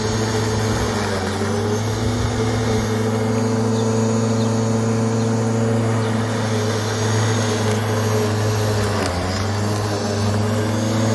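Corded electric rotary lawn mower running and cutting grass, a steady motor-and-blade hum whose pitch dips briefly about a second in and again near the end as it is pushed through the grass.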